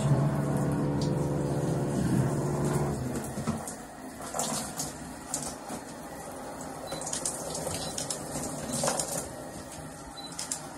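Running water in a tiled shower, with a steady low hum for the first three or four seconds, then scattered small clicks and rustles.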